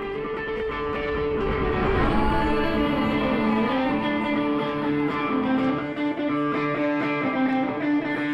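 Electric guitar playing a slow intro of sustained, ringing notes and chords, swelling in loudness over the first couple of seconds and then holding steady.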